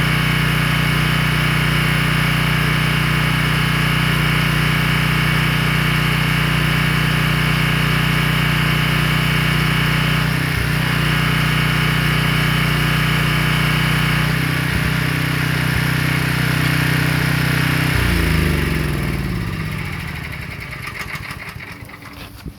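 Pressure washer's gas engine running steadily, with a couple of brief dips in its note. About 18 seconds in, its pitch falls away and it winds down as the engine is shut off.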